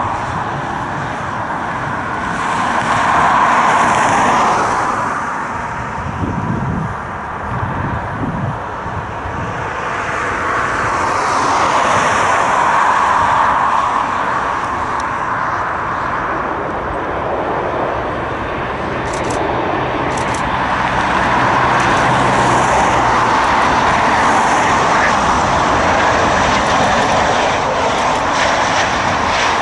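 Jet engines of Boeing 737 airliners on final approach at low thrust: a continuous rushing roar with a steady whine through it. It swells and eases a few times and holds loud through the last third.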